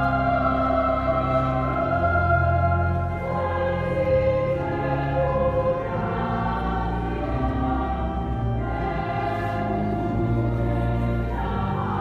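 Sacred music filling a cathedral: slow, sustained organ chords with choir-like singing, echoing through the stone nave.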